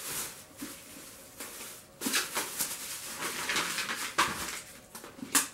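Clear plastic wrapping being pulled off a paperback book and crumpled in the hands: irregular crinkling and crackling, with a sharper crackle near the end.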